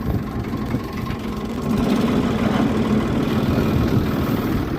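Tractor engine running steadily while pulling a plough on contour across a slope, a little louder from about two seconds in.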